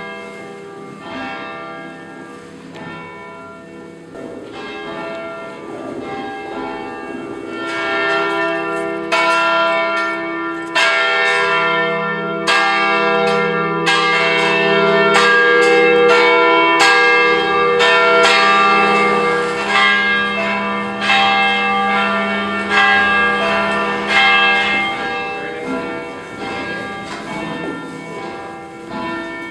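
Large church tower bells rung by hand from a rope, many strokes overlapping into a ringing wash. It swells louder after about six seconds, is loudest in the middle, and softens near the end.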